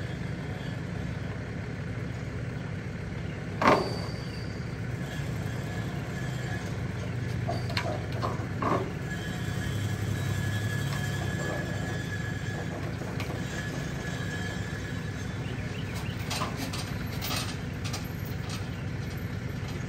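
Vehicle engine running while an SUV is driven up the ramp onto a flatbed car-hauler trailer, swelling a little around the middle, with one loud sharp knock about four seconds in and a few lighter knocks and clicks later.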